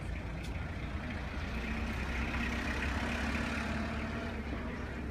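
A steady low engine rumble, with a humming tone that comes in about a second and a half in and fades near the end.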